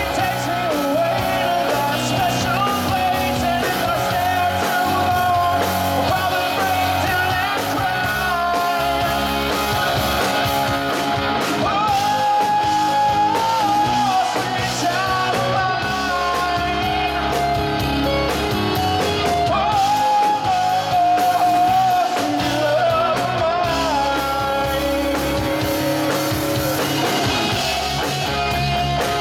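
Live rock band playing, with electric guitars, bass guitar and drum kit, and a male lead voice singing into a microphone.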